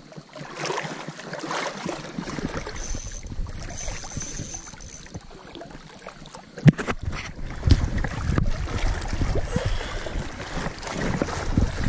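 Wind buffeting the microphone over the steady rush of river water, with gusts of low rumble in the second half and a single sharp knock about two-thirds of the way in.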